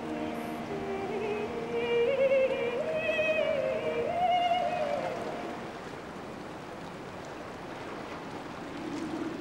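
A woman's voice singing a slow, wordless melody with vibrato, climbing step by step over a sustained drone, then fading after about five seconds and leaving the quiet drone.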